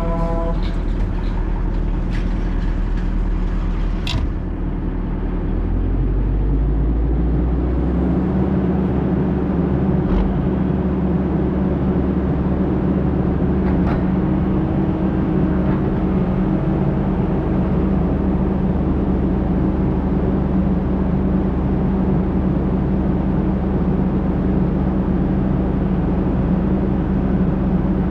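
Heavy diesel engine running steadily; about six to eight seconds in its pitch rises and settles higher. A horn tone cuts off right at the start, and a few sharp clicks sound in the first seconds.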